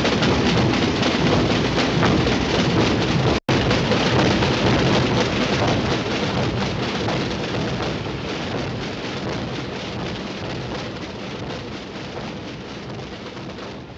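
Massed processional drums, many snare drums and bass drums played together by a crowd of drummers in one dense, continuous roll. The sound breaks off for an instant about three seconds in, then gradually fades away.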